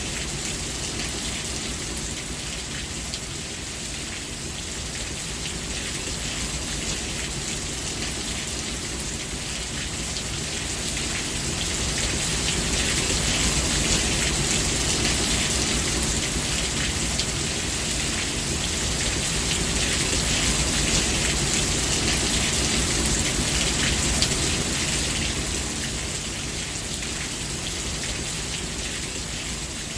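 Steady rain falling on a surface as a continuous hiss of drops. It swells louder in the middle and eases again toward the end.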